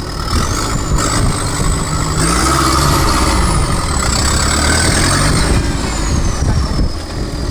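Engine of an extreme-trial 4x4 prototype running under load and revving up and back down. A high whine rises and falls with the revs, highest about three seconds in.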